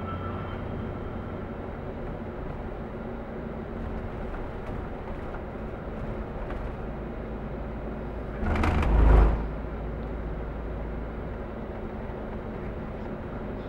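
Steady engine and tyre drone of a vehicle driving on a highway, heard from inside the cab. About eight and a half seconds in, a brief loud rush ending in a low thump lasts under a second before the steady drone goes on.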